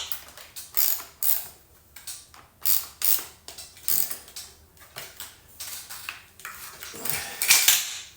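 Metallic clicking and rasping from a Stihl MS 201 C-M chainsaw's chain, bar and tensioning hardware being worked by hand while the chain tension is set. The clicks come irregularly, with the loudest cluster near the end.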